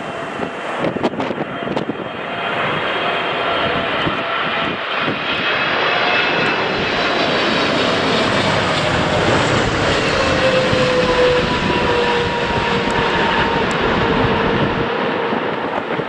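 Jet airliner's engines on a landing approach, growing louder over the first few seconds as the plane comes close, then a sustained rushing roar with a whine that slowly falls in pitch as it passes. Gusts of wind buffet the microphone near the start.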